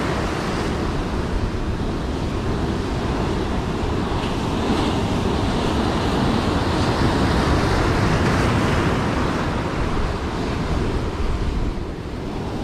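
Heavy surf washing over a boulder shore in a big swell, with wind buffeting the microphone.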